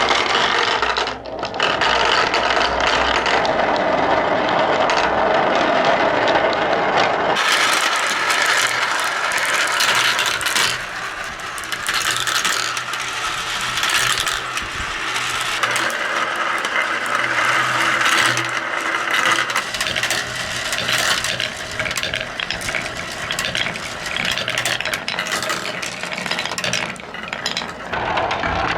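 Many glass marbles rolling and clattering down wooden and plastic marble-run tracks in a continuous rattle. The clatter grows brighter and sharper about a quarter of the way in.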